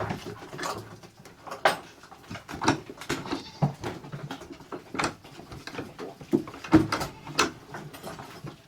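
Goats moving about in a barn pen: a run of irregular sharp knocks and clatters, about a dozen of them.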